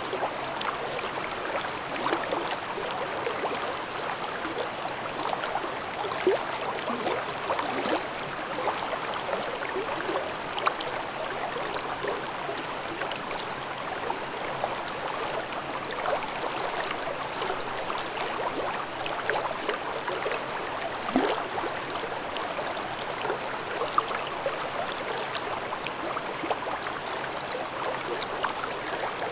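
Mountain stream babbling and gurgling over rocks, a steady run of water with small splashes and an occasional louder plop.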